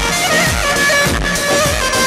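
Loud Middle Eastern wedding dance music for dabke: a wavering, ornamented melody over a heavy, steady drum beat.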